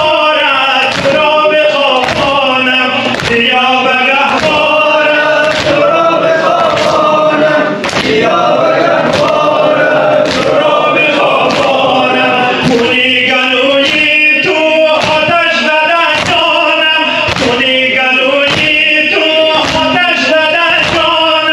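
A group of men chanting a Persian-language noha (Shia mourning lament) in unison, led by a male reciter through a loudspeaker, over a steady beat of hands slapping chests (sinezani).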